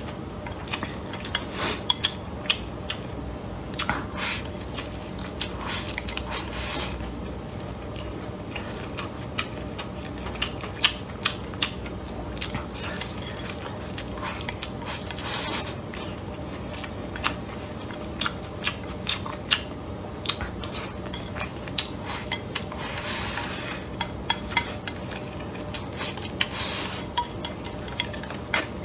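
Wooden chopsticks clicking and scraping against a ceramic rice bowl as rice is shoveled into the mouth, with some chewing. Many quick, irregular clicks throughout, broken by a few short scrapes.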